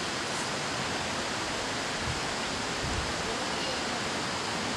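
Steady rushing of water from a river dam, an even hiss with no break in it. There are a couple of faint low bumps about two and three seconds in.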